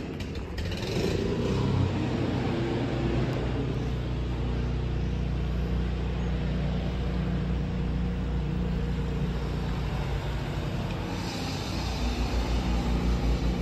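MZ 301 motorcycle's single-cylinder two-stroke engine running at a steady idle, with a quicker pulsing beat in the last couple of seconds.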